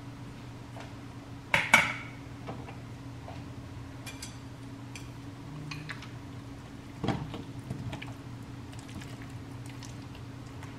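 Kitchen handling sounds: clinks and knocks of dishes and utensils, the loudest cluster about two seconds in and a dull knock with some rattling about seven seconds in, over a steady low hum.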